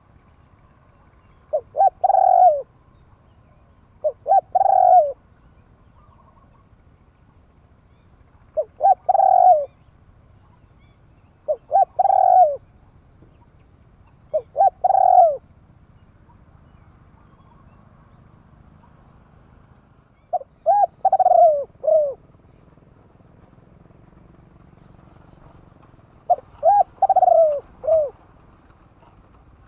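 Spotted dove cooing: about eight phrases, each a couple of quick short notes running into a longer, falling coo, repeated every few seconds with a longer pause in the middle stretch.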